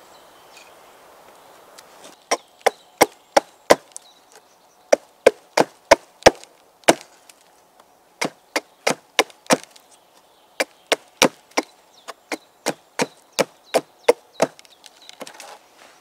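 A small axe chopping into a wooden stake against a log, a run of sharp wooden knocks at about three a second, in bursts of around five with short pauses, starting about two seconds in.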